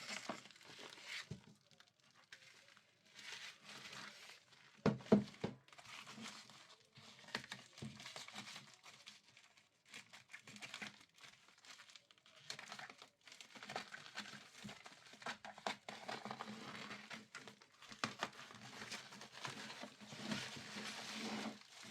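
Packaging crinkling and rustling in irregular bursts as a box is unwrapped and opened by hand, with a few sharper clicks about five seconds in.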